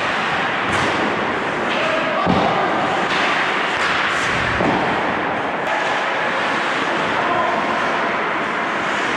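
Ice hockey play in front of the goal: skates scraping the ice and sticks clattering over a steady rink noise, with a sharp thud about two seconds in and another just before five seconds as shots come at the goaltender.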